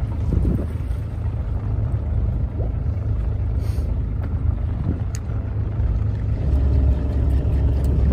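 Fishing boat's engine running with a steady low rumble, growing stronger about six and a half seconds in.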